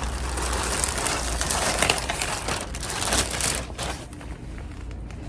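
Bubble wrap being pulled open and handled, a dense plastic crinkling and crackling that thins out after about three and a half seconds.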